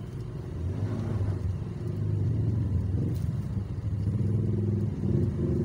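Motorcycle engine running while riding in traffic, over road and wind noise; its note shifts a few times and rises a little near the end.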